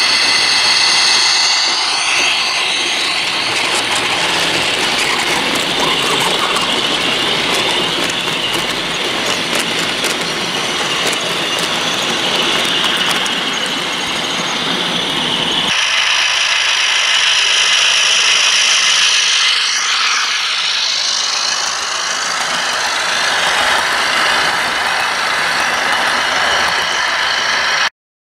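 OO gauge model diesel locomotive with a DCC sound decoder running with its train, giving a steady diesel engine sound together with wheel and rail noise. The sound changes abruptly just past halfway and cuts off just before the end.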